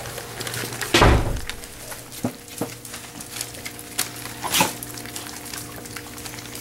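Australian labradoodle puppies eating canned food from a stainless steel feeding pan: a heavy thump about a second in, then scattered lighter knocks and clinks against the metal dish. A steady low hum runs underneath.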